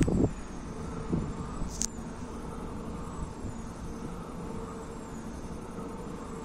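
Wind turbines running: a steady mechanical hum with a faint high whine that rises and falls in a slow, even cycle as the blades turn. A loud rush of noise at the very start and a single sharp click about two seconds in.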